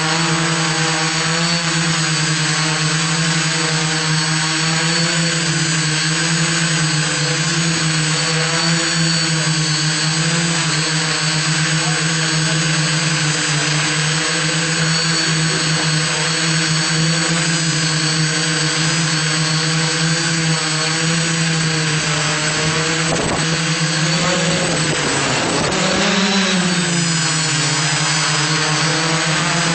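iDEAFLY iFLY 4S quadcopter drone's motors and propellers humming steadily in flight. Around 25 seconds in the pitch dips and then rises briefly before settling back.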